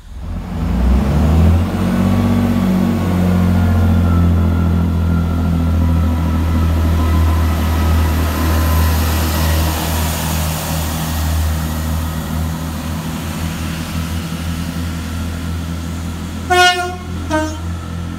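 GWR Hitachi Class 800 IET train running past along the platform track with steady engine and wheel noise. Near the end a train horn sounds two short notes, the second a little lower.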